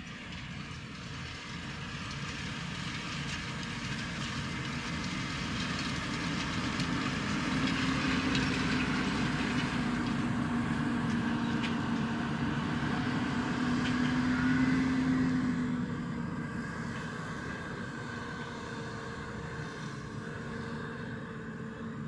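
Fendt 828 Vario tractor's six-cylinder diesel engine working under load as it pulls a Horsch Terrano 5 FX cultivator through the soil. The sound grows louder as the tractor approaches, is loudest about halfway through as it passes close by, then fades as it moves away.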